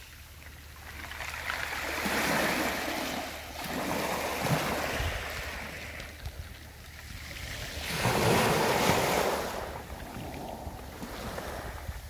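Small sea waves washing up a pebble beach and draining back through the stones, in three swells that rise and fade, the loudest about eight seconds in.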